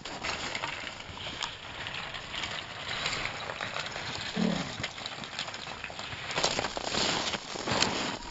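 Footsteps crunching in snow and on rocky ground as a hiker walks downhill, an uneven run of crunches that gets louder and busier near the end, with a brief low voice-like sound about halfway.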